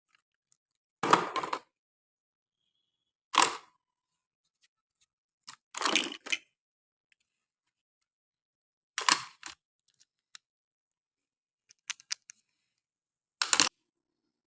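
Short bursts of plastic clicking and crackling from a toy being handled, about six times with silence between.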